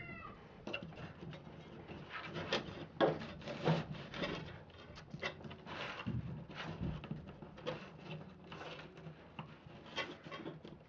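Small handling noises of needle-nose pliers working soft copper wire on a paper template: irregular light clicks, taps and paper rustles.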